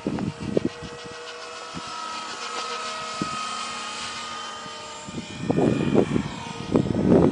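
Outrage G5 radio-controlled helicopter flying aerobatics: a steady whine from its motor and rotor that drifts up and down in pitch as it manoeuvres. Gusts of wind buffet the microphone, heaviest in the last two seconds.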